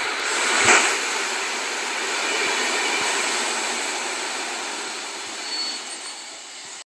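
PKP Intercity passenger coaches rolling past, a steady rush of wheels on rail with one sharper knock about a second in, fading as the last coach goes by. The sound cuts off abruptly near the end.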